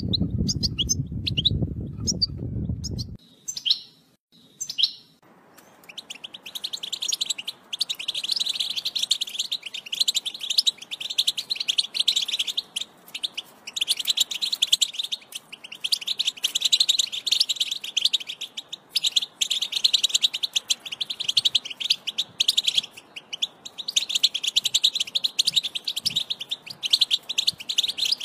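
European goldfinch singing a long, rapid twittering song in the Widani style, with fast trills and brief pauses, the kind of song played to teach young goldfinches. During the first three seconds a low rumble sits under a few scattered chirps before the continuous song takes over.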